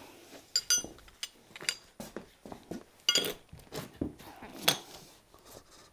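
Metal hand tools, spanners and sockets, clinking and clattering as they are handled: a string of separate sharp metallic clinks, a few of them ringing briefly.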